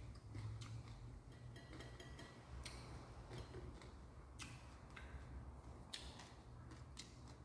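Faint, irregular ticks and light scraping, roughly one a second, as a slice of green mango is dabbed and rubbed in chili salt in a small stainless-steel bowl.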